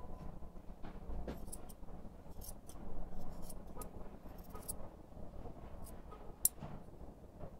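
Steel grooming scissors snipping through a poodle's curly fur, in irregular short snips, some in quick runs. A sharper click comes near the end.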